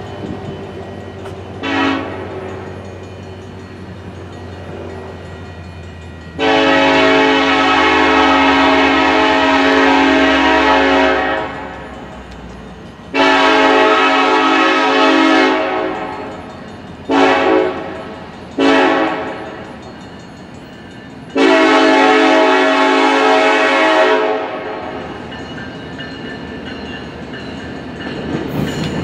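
Arkansas & Missouri SD70ACe diesel locomotive's multi-chime air horn sounding for a grade crossing. A brief toot is followed by two long blasts, two short ones and a final long blast. The engine's low rumble grows louder near the end as the train draws close.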